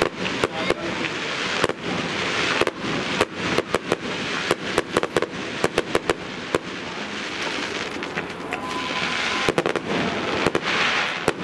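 Fireworks display going off some way off: a quick, irregular run of sharp pops and cracks, densest in the middle, over a steady rushing background.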